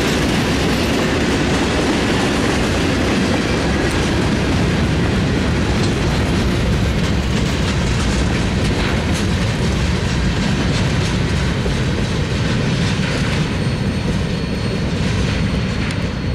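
Freight train of covered hopper cars rolling past, a steady rumble of steel wheels on rail with clicking over the rail joints. It eases off slightly near the end as the last car goes by.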